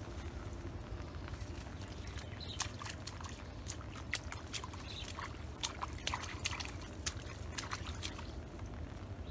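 Scattered wet clicks and squelches of hands working in soft mud, thickest through the middle of the stretch, over a steady low rumble.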